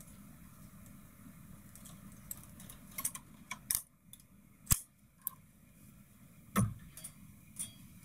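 Light metallic clicks and taps of a transfer tool against the needles of a single-bed knitting machine as stitches are hung onto the needle bed. A scatter of sharp clicks, the loudest about four and a half seconds in, with a duller knock a couple of seconds later.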